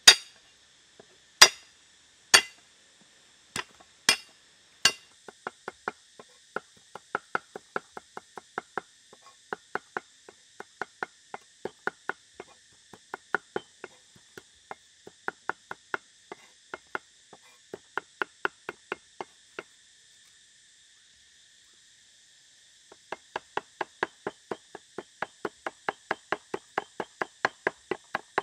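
Steel cleaver chopping garlic and red chili on a wooden chopping block: a few heavy single strikes, then rapid chopping at about three to four strokes a second. The chopping stops for about three seconds near the end, then starts again. A steady high insect drone runs underneath.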